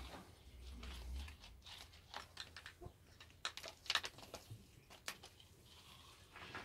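Light scrapes and taps on a concrete floor from a slingshot being flicked and dragged for kittens to chase, with a few sharper clicks in the middle.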